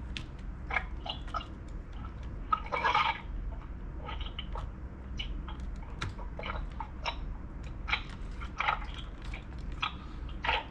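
Plastic clicks, taps and scrapes of a new battery pack being fitted and pressed into an Asus laptop's plastic case, with a longer scraping rustle about three seconds in. A low steady hum lies underneath.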